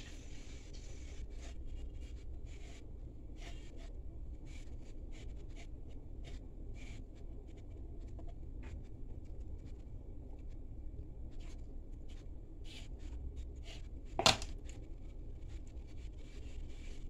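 Knife blade cutting slits into rolled-out dough, tapping and scraping lightly on the rolling board underneath in a string of small irregular ticks. One louder sharp knock comes about 14 seconds in.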